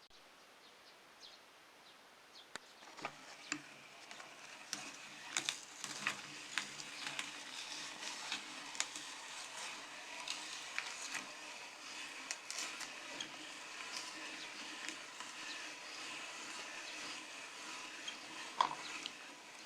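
Meat grinder crushing biscuits: a run of crunchy crackles and sharp clicks over a faint steady hum, growing busier after about three seconds.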